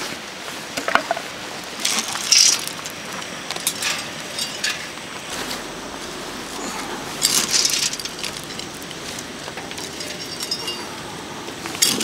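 Wood pellets scooped from a pail and poured into a metal secondary-combustion fire pit. They go in as several short rattling pours and clinks, with a longer pour about seven seconds in.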